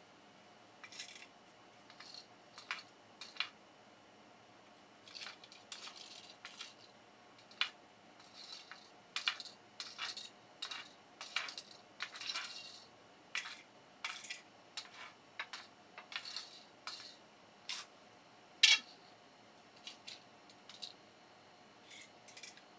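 Small sharp metallic clicks and clinks, irregularly spaced, about thirty in all, the loudest about three quarters of the way through.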